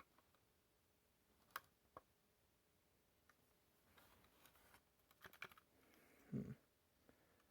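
Near silence with a few faint plastic clicks as a detached alarm's test button is pressed and the unit handled, and one short, low thump a little after six seconds. The alarm does not sound, because its test button is only being pressed, not held down.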